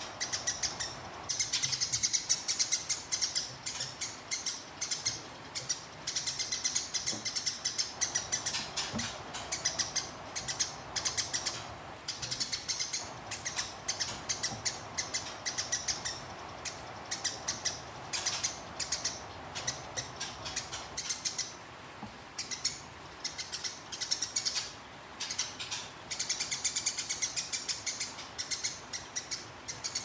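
Eurasian tree sparrow giving long bouts of rapid, harsh chirping chatter, many notes a second, with brief pauses between bouts. This is the agitated fighting-mood call.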